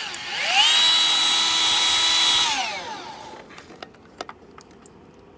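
Battery-powered grease gun motor whining up to speed, running steadily for about two seconds, then winding down, followed by a few faint clicks. The gun is not yet pushing grease into the fitting.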